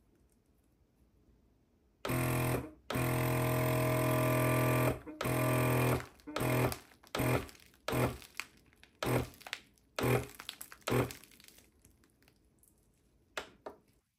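Vacuum sealer's pump motor humming, starting about two seconds in and running for about three seconds, then switching on and off in about a dozen short bursts as the pulse button is pressed repeatedly, each burst drawing the bag down a little more. Two more brief bursts come near the end.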